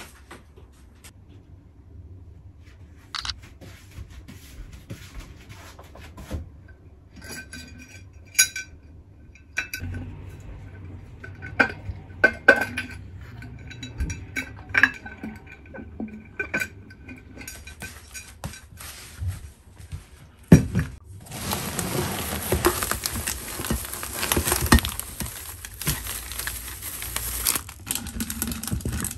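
Glass clip-top storage jars being handled and wiped dry: scattered glass clinks and knocks, with their wire clasps rattling. It gets busier toward the end, with a denser stretch of rubbing and rustling.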